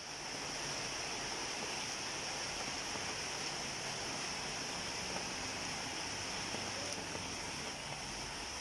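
Steady rain falling on leaves, an even hiss.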